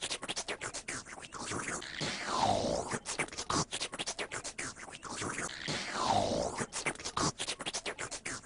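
A looped, scratched-up sound sample repeating about every four seconds: each pass is a falling, swooping glide followed by a run of fast, choppy stutters.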